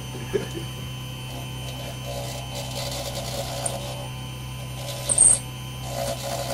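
Proxxon DB250 mini lathe running with a steady hum while a knife blade is held against the spinning float body, scraping it to shape; the scraping sets in about two seconds in. There is one sharp knock about five seconds in.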